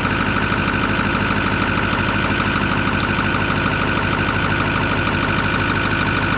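Ford 6.4-liter Powerstroke twin-turbo V8 diesel idling steadily.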